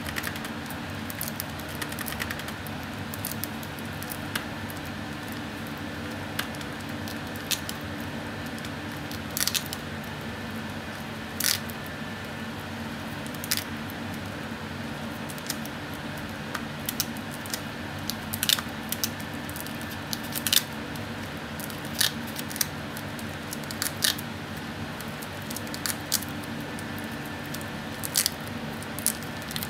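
Crinkling and crackling of paper cutouts covered in clear tape as they are handled and pressed onto a spiral notebook page: scattered short, sharp ticks and rustles every second or two over a steady background hum.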